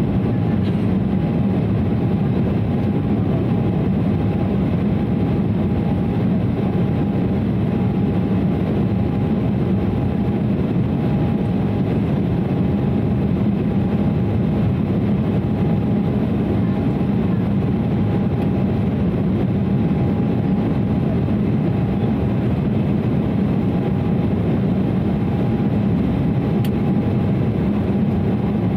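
Steady cabin roar of an Embraer 195 climbing out after takeoff, from its GE CF34-10E turbofan engines and the airflow, heard from a seat over the wing. A thin steady tone sits above the deep, even roar.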